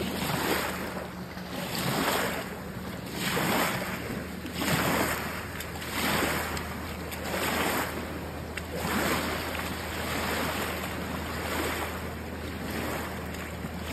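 Small waves washing up onto a gravel riverbank, a surge about every second and a half, over a steady low hum.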